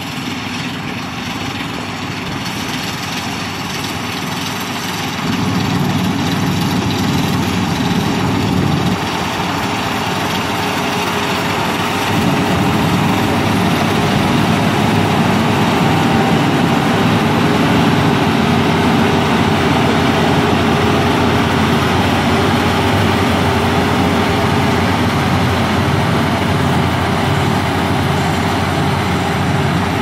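Rice combine harvester running under load while cutting rice, its engine and threshing machinery making a steady, dense drone. It grows louder about five seconds in and again about twelve seconds in as the machine comes close, then stays loud.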